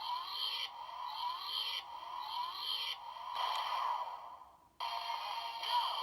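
Electronic sound effects and a short music loop played through a small toy speaker: a repeating swept, chirping pattern that cuts off abruptly about five seconds in, then starts again. This is a Super Sentai role-play toy sounding off for a DX gear it has been loaded with.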